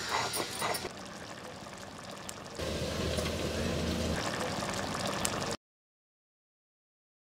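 A few light clicks of handling, then thick shark fish curry bubbling in a clay pot from about two and a half seconds in. The sound cuts off abruptly a little after five seconds.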